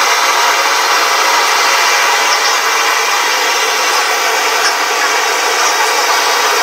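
Brass pressurised blowlamp burning at full flame, a loud steady hiss that does not change.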